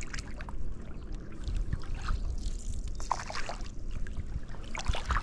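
Water splashing and trickling as a paddle dips into the lake beside a stand-up paddleboard, a few strokes about a second and a half apart, over a low wind rumble on the microphone.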